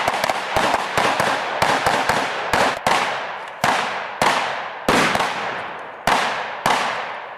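Rapid single gunshots, roughly two a second, each crack followed by a short echoing tail, as at a firing drill.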